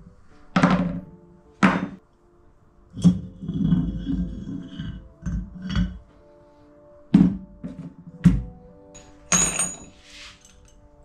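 Background music with a series of knocks and clunks of metal machine parts being handled and set down as a milling machine head is taken apart.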